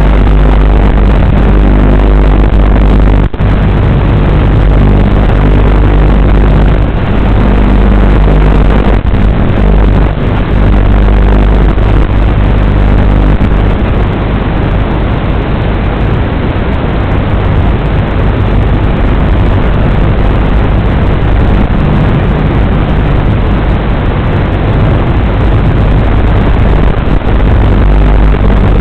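WLToys 12418 electric RC car driving, its motor and drivetrain noise heard as a loud, steady rumble with a low hum. There is one sharp knock about three seconds in.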